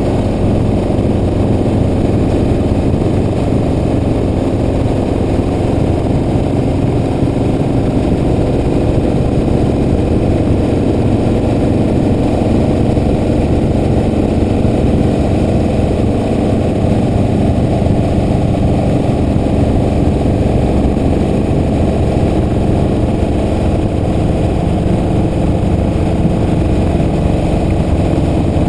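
Steady low rumble of a car being driven: engine and road noise running on without a break.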